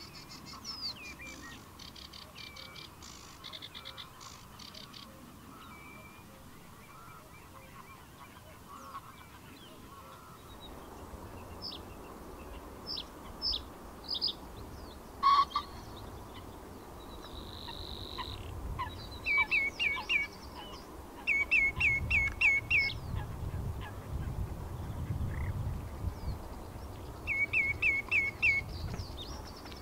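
Male reed bunting singing: short, simple phrases of five or six quick, repeated chirping notes, heard three times in the second half, with scattered single call notes before them. A low rumble runs underneath in the second half.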